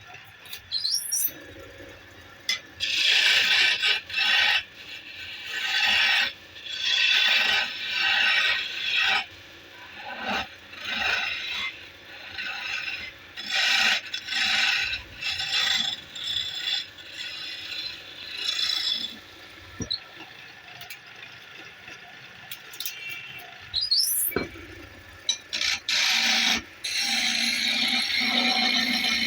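Wood spinning on a lathe being scraped by a tool held against it, in many short passes of about a second each. Near the end this turns into one long unbroken pass.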